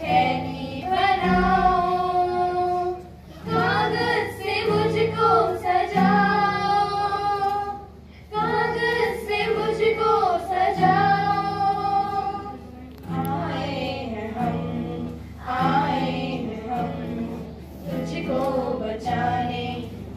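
A group of children singing a song, in phrases with short breaks between them, with an acoustic guitar accompanying.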